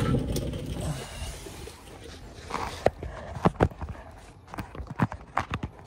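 A low rumble of movement that fades over the first second, then a scattered series of sharp knocks and clicks, several in quick succession towards the end.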